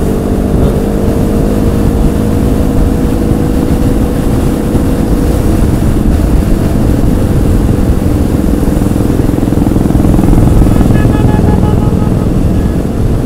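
Motorcycle engine running steadily at cruising speed, with wind rushing over the rider's microphone. A faint series of short high beeps comes in near the end.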